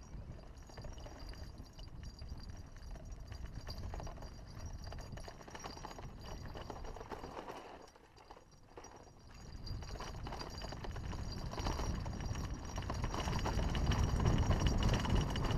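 Haro hardtail mountain bike rattling and clattering as it rolls downhill over a dirt trail, tyres crunching on loose ground, with low wind rumble on the microphone. It turns briefly quieter about halfway through, then the rumble and rattle build louder toward the end.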